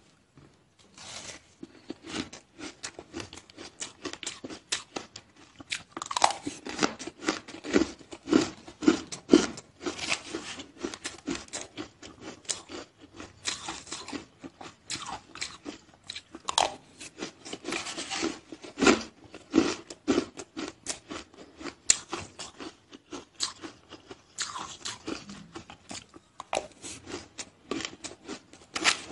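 Powdery white ice being crunched and chewed in the mouth: a continuous, irregular run of small crisp crunches.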